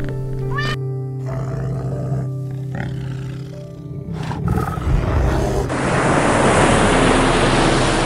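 Ambient synth music with steady held tones, with animal sounds laid over it: a short rising cat meow just under a second in, a bear's low growl around the middle, then a steady rush of surf breaking on a beach from about two-thirds of the way through.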